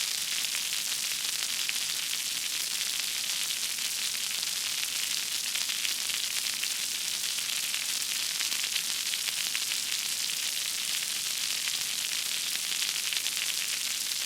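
Fire burning with a steady, dense crackle over a hiss.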